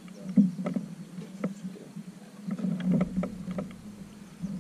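A canoe being paddled: a run of sharp knocks and splashes from paddle strokes, over steady water noise.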